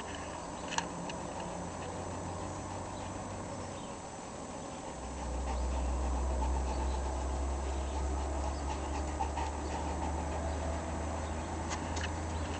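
A St. Bernard puppy panting and moving about, over a steady low rumble that grows louder about five seconds in; a sharp click sounds just under a second in.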